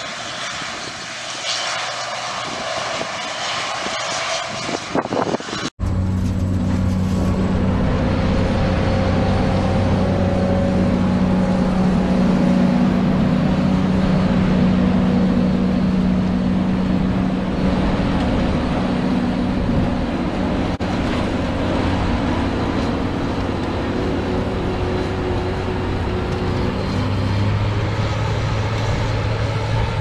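Case IH Axial-Flow combine running in the field, a steady diesel engine and threshing drone. About six seconds in the sound cuts to a louder, deeper, closer combine engine drone that holds steady.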